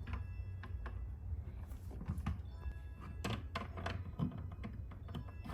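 Small plastic toy pieces clicking and knocking as they are handled and set down, a dozen or so light taps, over faint background music.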